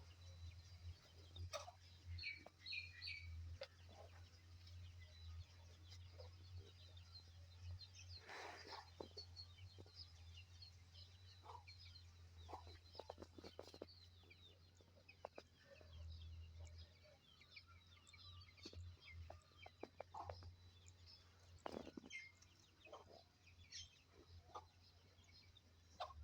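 Faint farmyard birdsong: many small birds chirping, with a few louder, longer animal calls and occasional clicks over a low steady hum.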